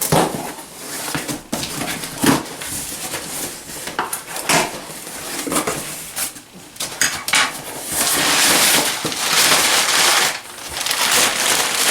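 A cardboard box of dryer repair parts being opened and unpacked: repeated knocks, clinks and rattles of the parts and box, with a louder stretch of rustling packaging about eight seconds in.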